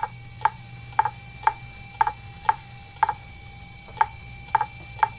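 Fujitsu 2.5-inch IDE laptop hard drive clicking about twice a second, with a short pause near the middle, over a faint steady whine. The repeated head clicking is typical of a failing drive's "click of death", its heads unable to read and retrying over and over.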